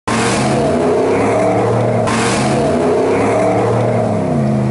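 Ram 1500 pickup's engine revving hard as it accelerates away, its pitch rising and falling, with the wheels spinning and throwing snow.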